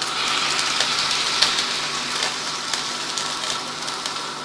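Broth being poured over ghee-toasted bread in a hot pan, giving a steady hiss with small crackles.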